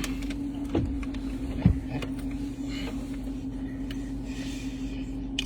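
A steady low hum of a running motor, with a couple of short soft knocks about one and two seconds in.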